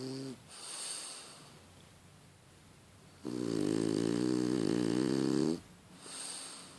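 French bulldog snoring in its sleep. A breathy draw of air comes first, then a loud pitched snore lasting about two seconds, then another breath near the end.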